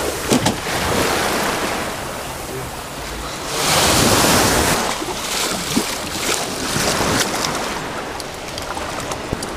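Small shore waves breaking and washing over the sand around the canoe's hulls, with a louder wave wash about four seconds in. Wind buffets the microphone, and there are a few light knocks.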